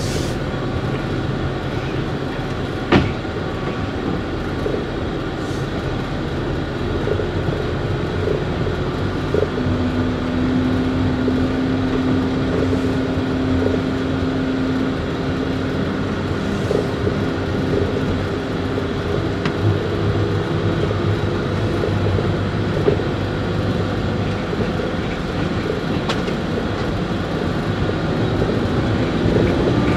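Steady vehicle running noise, with a single sharp knock about three seconds in.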